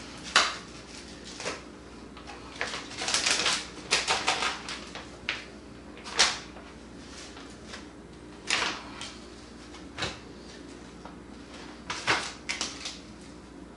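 A plastic vacuum-sealer bag crinkling and rustling in irregular bursts as chicken legs are put into it by hand.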